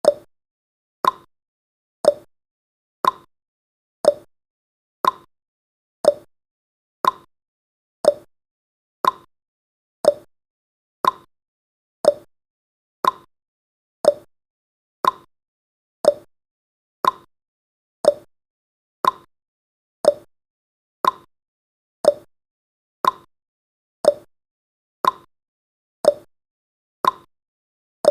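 Clock-style tick-tock sound effect marking each second of a countdown timer: one short, sharp tick per second, alternating between a lower and a higher pitch.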